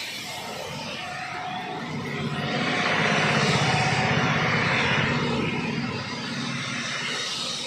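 Heavy rain hissing on a wet road while a city bus drives past. The bus's engine and its tyres swishing through the water swell to a peak in the middle, then fade away.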